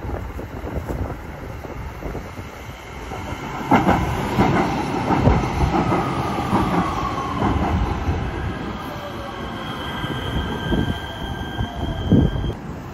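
Kinkisharyo P3010 light-rail train of the LA Metro E Line pulling into the station: wheels clicking over rail joints from about four seconds in, its motors whining down steadily in pitch as it brakes, and a steady high squeal near the end as it comes to a stop.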